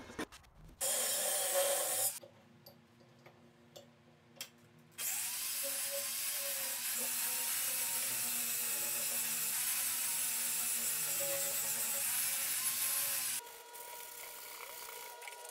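Hand-held angle grinder grinding metal, throwing sparks. A short burst comes about a second in, then a long steady run from about five seconds in that stops suddenly near the end.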